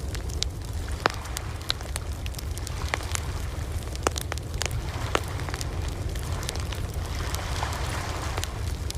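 Campfire crackling, with scattered sharp pops at irregular intervals over a steady low rumble of ocean waves. A soft wash of surf swells up near the end.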